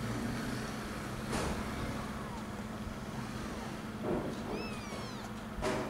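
Nursing mother cat purring with a low, steady hum. A newborn kitten gives a short, high, falling squeak about four and a half seconds in. Brief sharper sounds come about a second and a half in and again near the end, the loudest just before the end.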